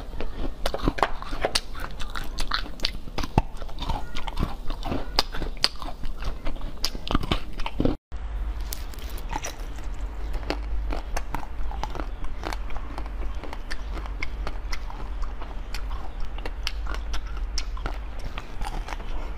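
Close-up biting and crunching of food: pineapple slices being bitten and chewed, then, after a short break about eight seconds in, frozen pink-and-purple ice sticks being bitten with sharp crunches over a low steady hum.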